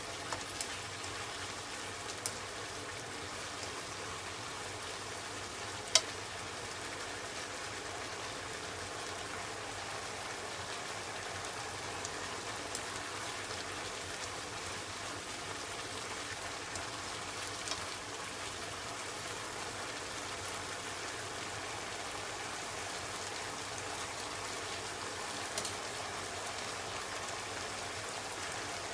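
Daikon peel and pork sizzling steadily in a pan as they are stir-fried and braised, with a few small pops and one sharp click about six seconds in.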